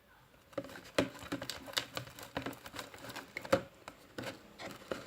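Fluffy slime of glue, shaving foam and detergent being mixed, giving a quick irregular run of sticky clicks and squelches from about a second in as the mixture starts to come together.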